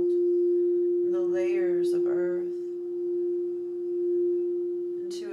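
Quartz crystal singing bowl ringing one steady, pure tone that swells and eases a little as it sings. A woman's voice sounds briefly over it about a second in.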